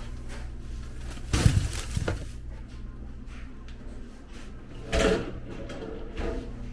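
Kitchen drawers and cupboard doors being opened and shut, likely while looking for knives. There are a few knocks and clatters, the loudest about a second and a half in and again near five seconds, over a steady low hum.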